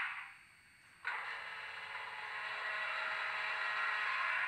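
Sound decoder of a Broadway Limited Paragon4 HO-scale EMD GP20 model locomotive playing its startup sequence through the model's small speaker. After a near-silent second, the recorded diesel engine fires up suddenly and runs, building steadily louder.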